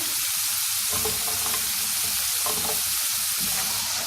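Cornflour-coated potato fries sizzling steadily in hot deep-frying oil, golden brown and crisp, with a few faint knocks among the sizzle.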